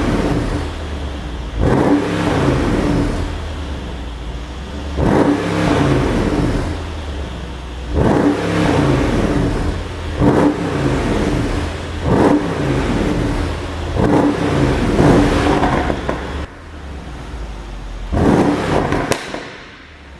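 Mercedes-AMG CLS 63's twin-turbo V8 at idle, blipped up about seven times. Each rev falls away with popping and crackling on the overrun from a pop-and-crackle exhaust tune.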